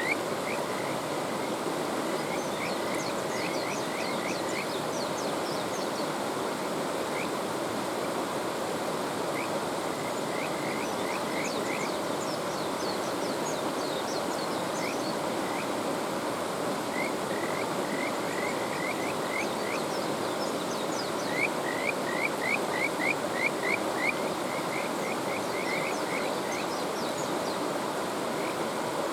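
Kajika frogs (Buergeria buergeri) calling: runs of short, rising, whistle-like notes, repeated in several bouts, the loudest run about three quarters of the way through. Beneath them is the steady rush of a mountain stream.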